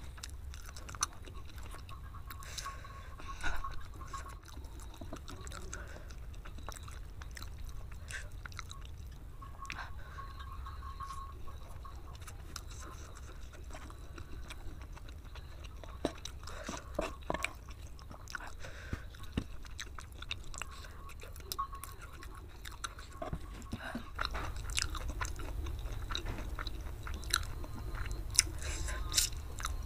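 Close-miked chewing of spicy fried kway teow (flat rice noodles), with scattered short clicks that come thicker near the end.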